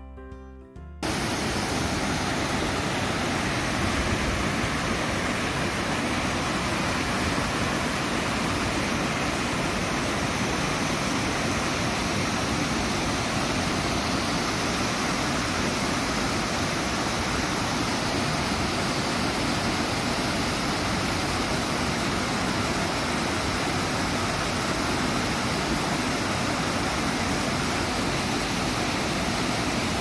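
Guitar music stops about a second in and gives way to the steady rush of a waterfall, water pouring over rock ledges into a pool.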